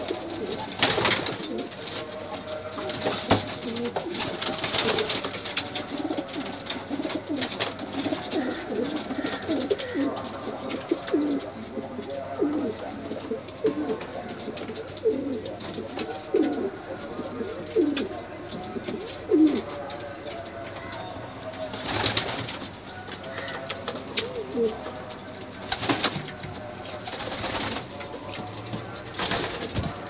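Domestic pigeons cooing in a loft: many short, low coos, thickest in the first two-thirds, with several brief noisy rustles in between.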